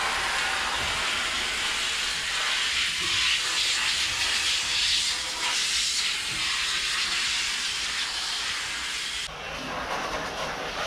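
Water spray washing out the steel body of a VW Kombi Ute: a loud, steady hiss of the jet hitting the panels. It cuts off suddenly about nine seconds in.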